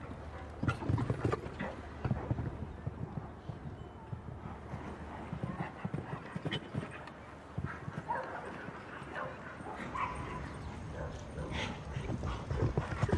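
Show-jumping horse cantering on turf between fences: a run of dull hoofbeats.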